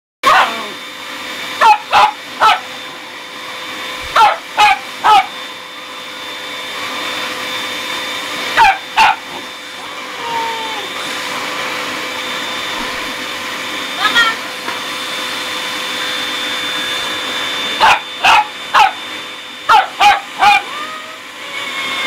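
Vacuum cleaner running steadily with a constant whine while a dog barks at its hose nozzle in quick bursts of two or three loud barks, repeated about half a dozen times.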